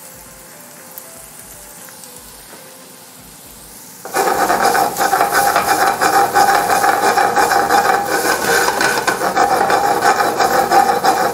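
Diced potatoes and apples frying in butter in a skillet: at first a faint sizzle, then from about four seconds in the pan is shaken back and forth over the gas burner. This brings a loud, steady sizzling with the food sliding and the pan scraping, with a ringing tone running through it.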